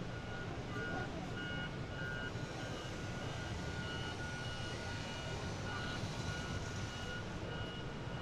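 A vehicle's reversing alarm beeping steadily, about two beeps a second, over a constant low rumble of outdoor background noise.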